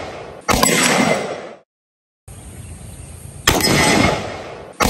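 Three semi-automatic pistol shots, about half a second in, about three and a half seconds in, and right at the end, each followed by about a second of echoing ring.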